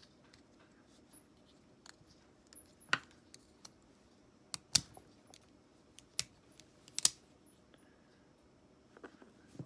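Scattered sharp metallic clicks and taps, about half a dozen at uneven intervals, from small metal parts or tools being handled and set down.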